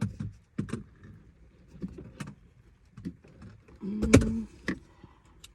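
Scattered plastic clicks, knocks and rustling from handling a dash camera's wiring connector while plugging it in, with a louder knock about four seconds in.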